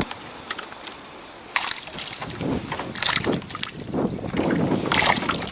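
Water sloshing and splashing beside a small fishing boat in several short bursts, starting about a second and a half in, with wind on the microphone.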